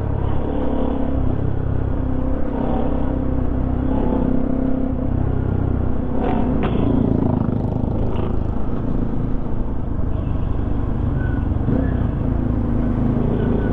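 Sport motorcycle's engine running at steady, moderate revs as the bike cruises along, with road noise underneath.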